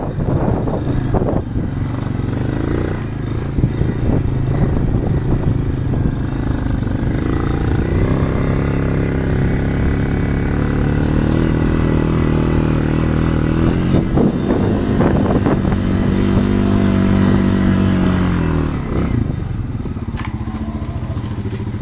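Four-wheeler (ATV) engine running as it drives over snow. Its pitch climbs about eight seconds in and holds high, then drops off near the end as it slows, with a few rattles and knocks from the machine.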